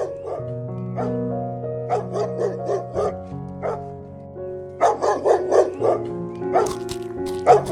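A dog yipping in quick runs of short yelps over soft background music with long held notes.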